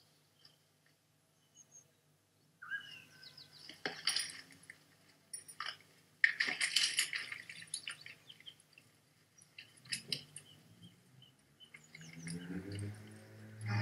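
A crisp apple being bitten and chewed: a sharp crunch about six seconds in, with quieter crunches and small clicks around it, over a faint low hum.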